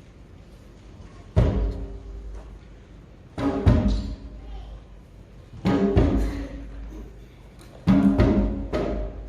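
Percussion instruments in a school ensemble struck together about every two seconds, four times. Each hit rings as a pitched chord over a low thump and dies away before the next.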